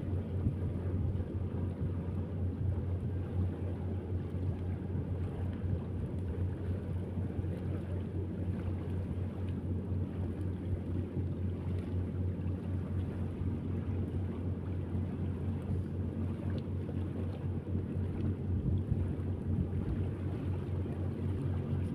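Steady low engine drone, with wind noise on the microphone.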